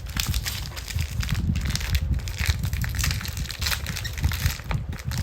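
Packaging being handled and opened: irregular crinkling and crackling, over a low rumble.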